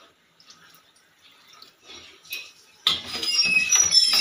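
Water poured from a plate into hot crab masala in a steel kadai. Loud sizzling with high hissing tones sets in suddenly about three seconds in, as the water hits the hot oil and spice paste to start the gravy.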